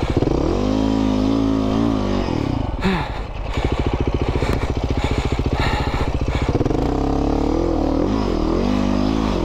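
Dirt bike engine revving in two surges, with steadier running between and a brief clatter about three seconds in, as the bike struggles for grip and slides back on a steep, loose climb.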